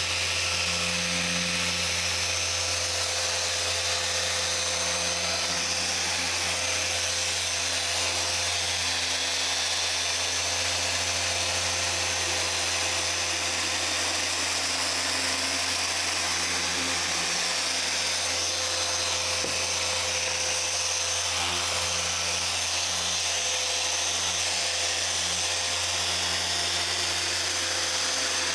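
Dual-action polisher running steadily on a car's paint, polishing out swirls during paint correction. It is a continuous whir with a low hum under it.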